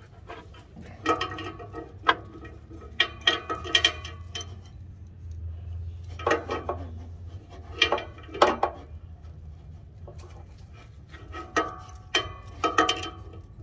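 Short clusters of metallic clinking and rattling, repeated irregularly, over a faint low hum.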